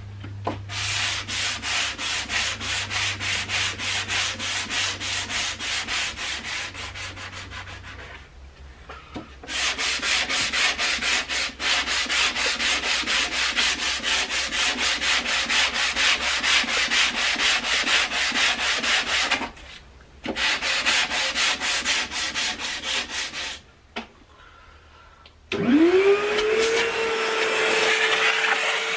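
A wooden radio cabinet is being hand-sanded with a sanding block: rapid, even back-and-forth strokes in long runs, with a few short pauses. Near the end an electric motor spins up and runs at a steady pitch.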